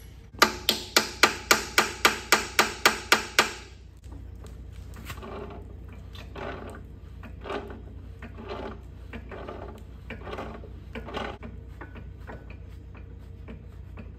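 About a dozen quick, ringing metal-on-metal hammer blows, roughly four a second, on a forklift mast's hydraulic cylinder fittings. After them come softer scraping and clanking strokes about once a second as a wrench is worked on the cylinder.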